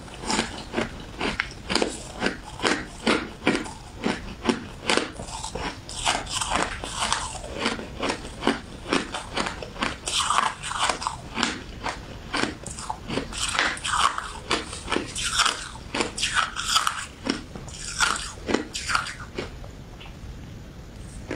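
Shaved ice being bitten and chewed close to the microphone, a steady rhythm of crisp crunches about two a second that stops shortly before the end.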